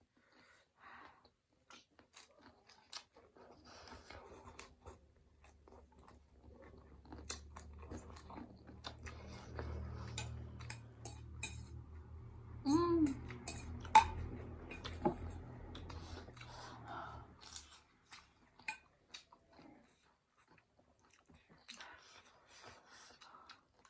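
Noodles being chewed and eaten close to the microphone, with many small wet clicks and smacks. A low hum sounds underneath from a few seconds in until near the end.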